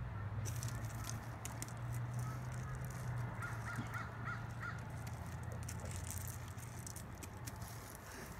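A dog rolling and wriggling on its back on pebbly gravel, the stones crunching and clicking irregularly under him. Midway through, a bird calls a quick run of about six short notes, over a steady low hum.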